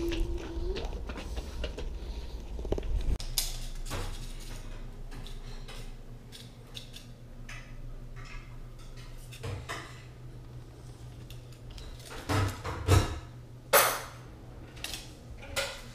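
Scattered light knocks and clatter over a steady low room hum, with a cluster of sharper knocks near the end.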